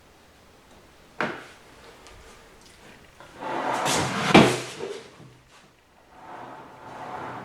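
Handling of tools and metal parts: a sharp knock about a second in, then a longer clatter that peaks in a loud clack, and quieter shuffling near the end.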